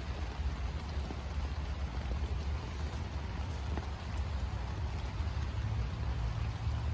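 Steady light rain falling on a canopy overhead, with scattered drops ticking and a steady low rumble underneath.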